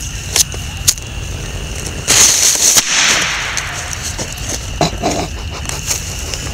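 A small firecracker going off on a tree stump about two seconds in: a sudden bang with a rush of noise that fades over about a second. A couple of sharp clicks come before it.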